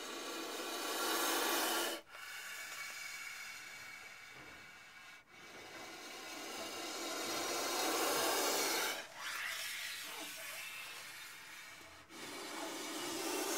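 Indian cobra hissing: a run of long, forceful hisses, each building in loudness over two to four seconds and then cutting off sharply, about five in a row.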